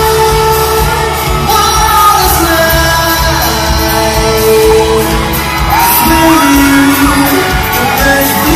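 Live pop performance in an arena: a boy band singing held, gliding vocal lines over a backing track with a steady beat. The sound is loud and echoing, with audience shouts mixed in.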